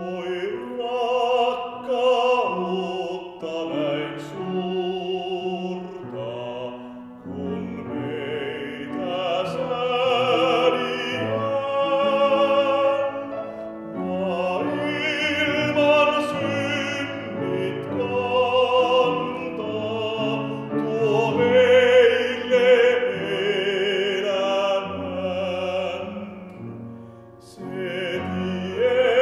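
A male solo voice sings a Finnish hymn with vibrato, in long phrases with short breaths between them, over instrumental accompaniment that holds low bass notes.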